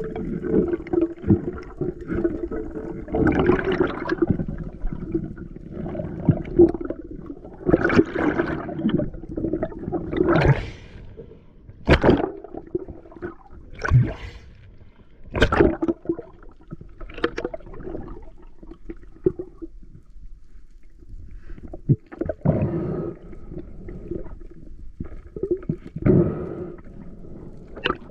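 Seawater sloshing and gurgling in repeated bursts a second or two apart, several sharper surges in the middle.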